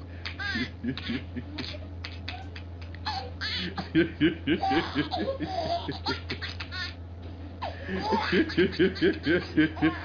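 A man and a baby laughing hard together in runs of rapid, repeated ha-ha pulses. The laughter peaks about four seconds in and again from about eight seconds in.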